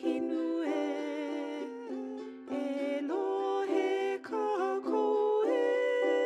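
A Hawaiian hula song: a singing voice holding long, wavering notes over ukulele accompaniment.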